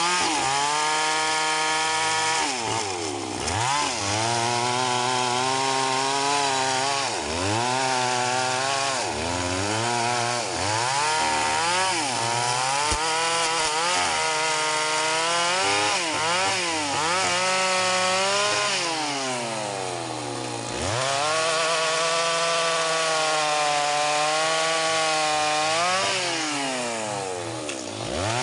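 STIHL MS 381 two-stroke chainsaw cutting mahogany, running hard throughout, its engine pitch repeatedly dropping as the chain bogs in the wood and rising again as it picks back up.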